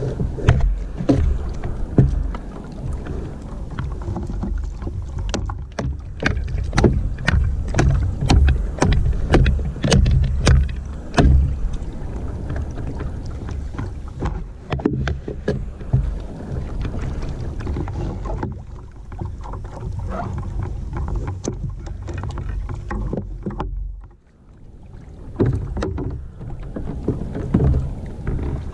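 Low rumble of water sloshing against a kayak's hull and outrigger floats, with a run of sharp clicks and knocks, a couple a second, from about five to eleven seconds in.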